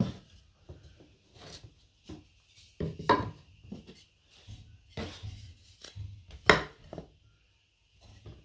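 Pre-cut wooden bee-box pieces being handled and set down on a flat tile: irregular knocks and scrapes of wood, loudest about three seconds in and again about six and a half seconds in.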